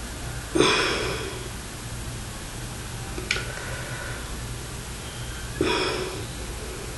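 A man's two sharp breaths, each starting suddenly and fading within about half a second, about five seconds apart, with a small click between them. A steady low hum runs underneath.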